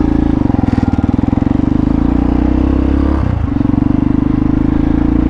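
Hawk 250 dual-sport motorcycle's single-cylinder engine running steadily under way, with a brief dip in its sound a little over three seconds in.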